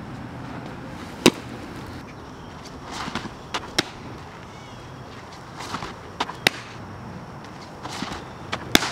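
Fastpitch softballs smacking into a catcher's leather mitt: a run of sharp pops, the loudest about a second in, the later ones each following a short rustle.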